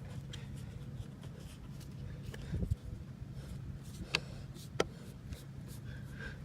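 Handling noises while a trim ring is fitted onto a subwoofer: a low thump a little over two seconds in, then two sharp clicks around the four- and five-second marks, over a steady low hum.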